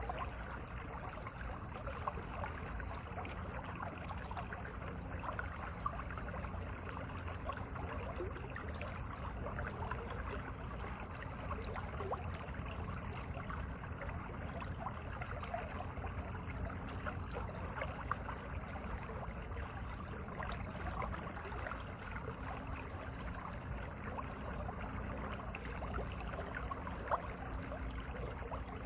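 Mountain valley stream flowing steadily, an unbroken rush of running water.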